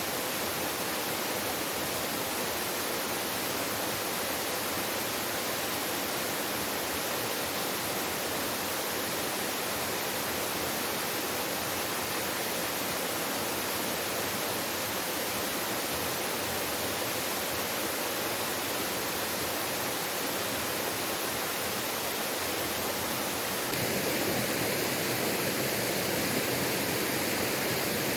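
Steady rushing of a waterfall. About 24 seconds in it steps up slightly in level and takes on a brighter tone.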